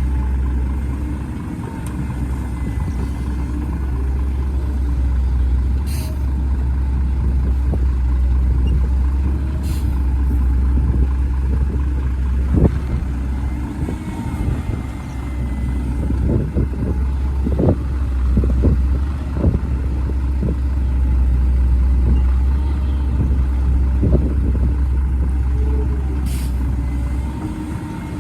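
Heavy diesel engine of an excavator running with a steady low rumble. A run of short knocks and clanks comes through the middle, and there are a few brief hisses.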